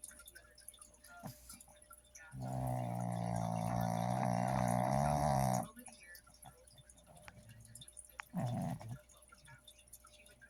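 Pug snoring loudly: one long pitched snore starting about two seconds in and lasting some three seconds, then a shorter snore near the end.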